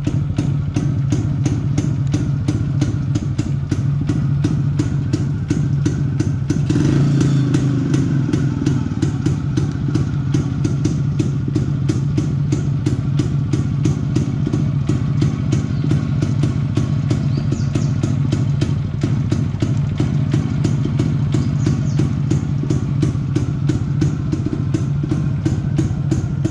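1987 Yezdi CL II's single-cylinder two-stroke engine idling steadily, with a brief rise in revs about seven seconds in.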